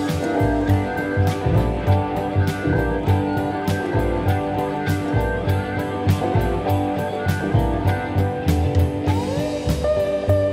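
Background instrumental music with a steady drum beat.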